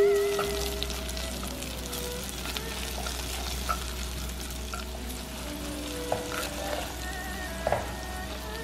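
Chopped green onion and garlic sizzling steadily in hot oil and Chongqing hotpot base in a clay pot while a wooden spoon stirs them, with a few light taps of the spoon against the pot.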